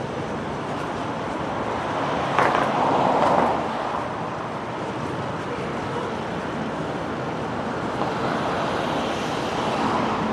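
Steady city street traffic noise, swelling louder as vehicles pass about two and a half seconds in and again near the end.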